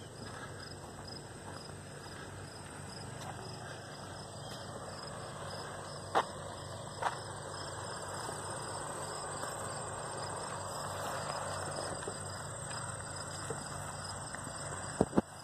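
Insects calling: a steady high-pitched trill with a regular, quick pulsing chirp running alongside it. Sharp clicks stand out about six and seven seconds in and twice more near the end.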